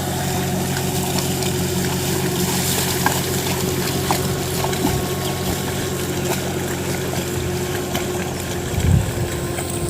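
A motor running with a steady hum, over a wash of splashing water, with a low thump about nine seconds in.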